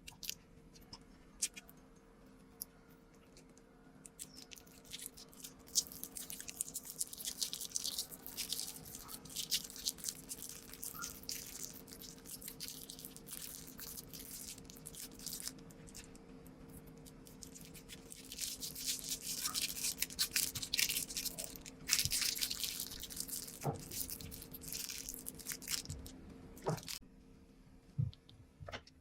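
Slime being squished and pressed by hand, making dense crackling, clicking and popping sounds that come in two long busy stretches, with a quieter spell between them and near the start and end. A faint steady hum runs underneath.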